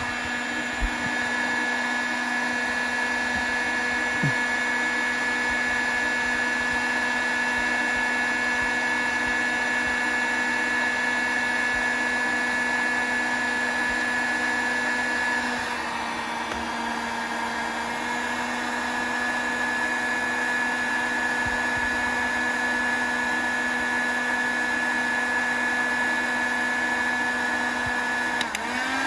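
Electric heat gun running steadily, a fan-motor whine with a constant hum and rush of air, heating a rust-seized bolt to free it. The pitch and level sag for a couple of seconds about halfway through and again briefly near the end.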